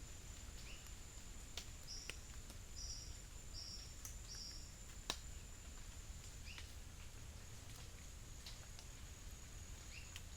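Faint outdoor nature ambience with a steady, high insect drone. A bird gives four short high notes between about two and five seconds in, with short rising chirps now and then and scattered clicks, one sharp click about halfway through.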